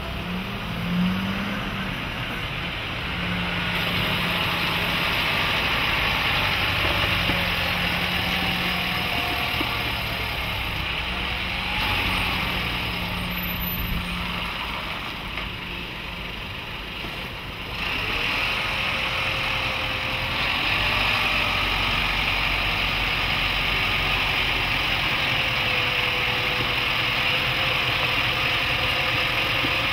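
Mercedes-Benz Unimog U 5023's four-cylinder diesel running at low revs as the truck crawls over the crest of a steep ramp and down it. A steady low engine note with slowly wavering higher tones; the sound shifts a little past halfway through.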